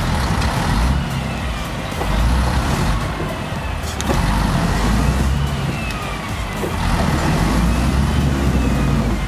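Logging truck's diesel engine running with a heavy low rumble, with a whine that rises and falls in pitch several times.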